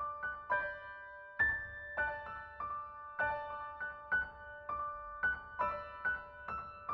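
Background piano music: a slow melody of single struck notes, about two a second, each note ringing on and fading.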